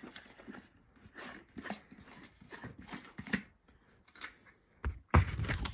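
A dog panting in short, irregular breaths, then a sudden louder burst of noise near the end.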